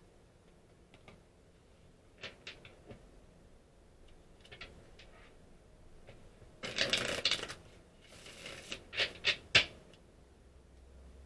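Tarot cards being handled and shuffled: scattered soft flicks, a dense shuffling rush about seven seconds in, then a few sharp card snaps soon after.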